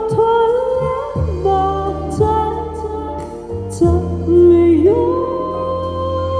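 Live band playing, with a woman singing long held notes into a microphone over keyboard, bass guitar and drums.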